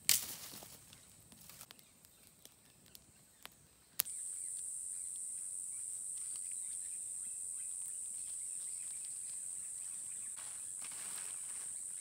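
A brief loud rush of noise at the very start, then a few faint knocks. About four seconds in, a steady high-pitched drone of cicadas cuts in abruptly and holds at an even level.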